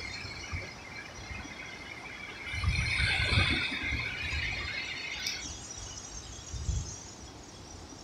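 Small Atlantic waves breaking and washing up a sandy beach, with low rumbles as they crash. A harsh, high-pitched squealing noise of unclear origin lasts for a few seconds in the middle and cuts off sharply.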